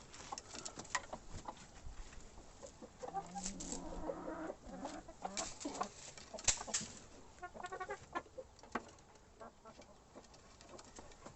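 Chickens clucking in short bursts, with scattered sharp clicks among them.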